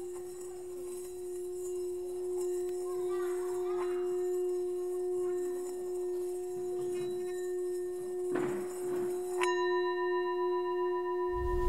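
A sustained, ringing musical drone held on one low pitch. A brighter, higher ringing tone joins it about nine and a half seconds in. Faint rustling sounds lie beneath, with a short breathy burst a little after eight seconds.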